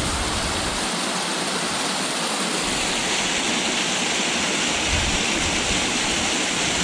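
Small waterfall's water rushing steadily, a constant hiss of falling water.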